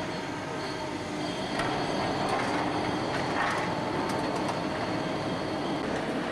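Hydraulic demolition excavator working its grab in rubble and steel framing: a steady machine din with squealing, scraping metal and several crunching impacts of breaking debris.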